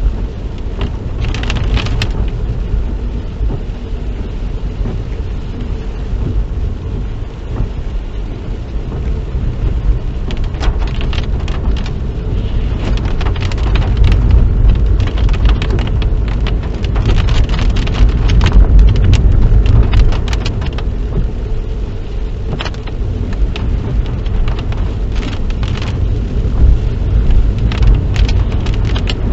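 Car interior while driving on wet roads in the rain: a steady low road and engine rumble, with spells of crackling spatter from rain and tyre spray on the car.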